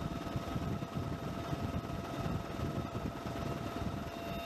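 MV-22 Osprey tiltrotor's twin turboshaft engines and proprotors running as it hovers and sets down on a ship's flight deck: a steady, low, pulsing rumble with a faint steady whine.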